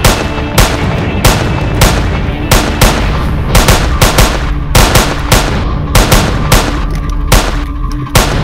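Repeated gunshots, about one or two a second with some in quick pairs, over background music.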